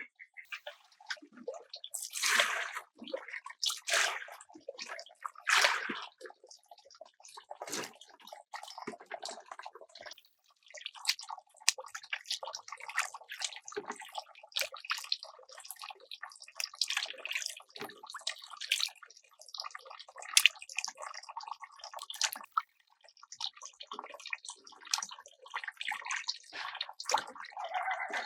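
Irregular splashing and sloshing of water, with scattered knocks and clatter.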